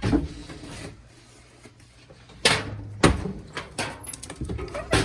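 Household knocks and clicks: a dull thud at the start, then two sharp knocks about two and a half and three seconds in, followed by a run of quicker clicks and taps.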